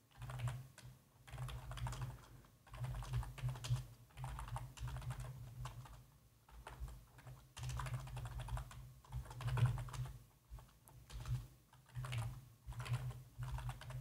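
Typing on a computer keyboard: runs of keystrokes in uneven bursts with short pauses between them.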